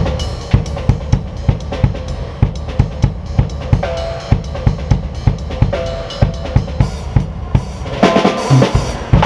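Drum kit played in a steady groove, bass drum and snare hitting on a regular beat, with a burst of cymbals about eight seconds in.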